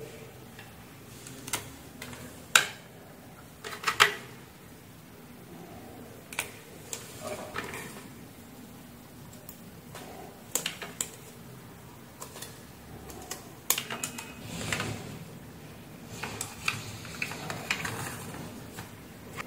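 Irregular sharp clicks and taps with light rustling: pliers, wire connectors and a blender's control circuit board being handled and fitted on a workbench.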